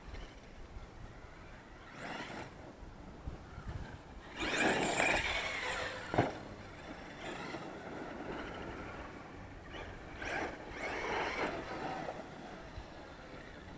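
Losi LST XXL large-scale RC monster truck driven in bursts over dirt, its drivetrain and tyres surging with the throttle several times. About six seconds in, a single sharp thud as it lands from a jump.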